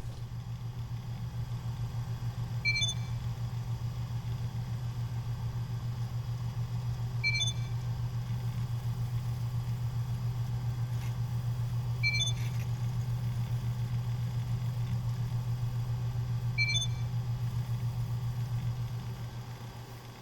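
A steady low hum with a fast even pulse. A short high electronic beep sounds four times, about every four and a half seconds. The hum fades out near the end.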